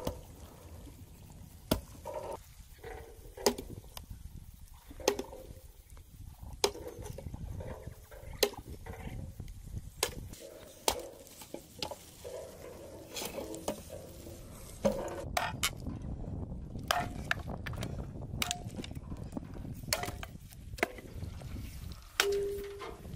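Hatchet chopping branches on a wooden chopping block: sharp chops about every second and a half, coming closer together in the second half, with split sticks clattering.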